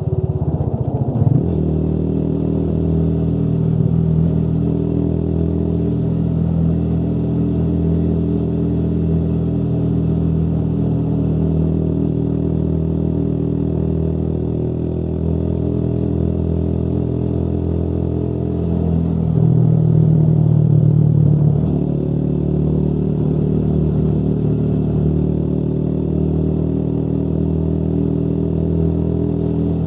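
Motorcycle engine running steadily under way, its pitch shifting about a second in and getting louder for a couple of seconds about two-thirds of the way through as the throttle is opened.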